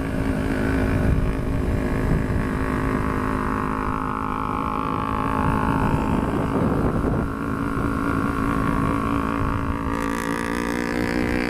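Kawasaki 250 cc parallel-twin motorcycle engines running on the move, the note dipping in pitch about midway and rising again, over a low uneven rumble of wind on the helmet. The leading Ninja 250R's exhaust is loud.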